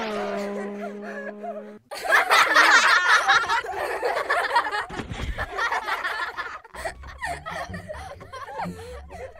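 A steady hum for the first two seconds cuts off abruptly. People laughing and chuckling follow, loudest a few seconds in and quieter after another break near the end.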